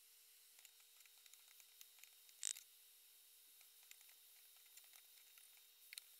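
Minced onion crackling faintly in a frying pan, with small ticks as it is stirred and one brief louder scrape of a wooden spatula through the onions about two and a half seconds in. A faint steady hum runs underneath.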